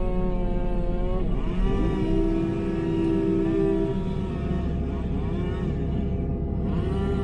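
A chainsaw revving up, cutting and dropping back several times as limbs are cut off a log, over the steady low running of an excavator's diesel engine.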